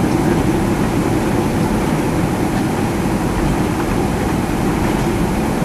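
Boeing 767-300ER heard from the cabin on the landing roll: a steady rumble of engine and runway noise, with the engine's thrust reverser open.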